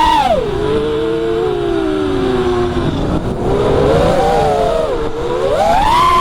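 Brushless motors of a 4S FPV quadcopter whining with the throttle, heard through the onboard camera's microphone. The pitch drops sharply just after the start, stays low, rises and dips again in the middle, then climbs high near the end, over a rush of air noise.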